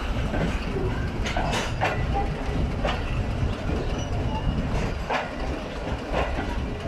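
Empty passenger coaches rolling past close by: a steady low rumble of wheels on rail, broken by several irregular clanks as the wheels cross rail joints.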